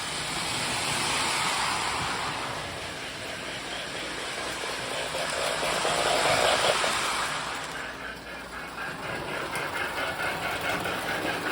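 Several toy electric trains running at once, their electronic steam-sound units giving an overlapping hiss and rumble. About eight seconds in the louder sound cuts out, leaving one train's rhythmic chuffing: the Marx Big Rail set's Sound of Power.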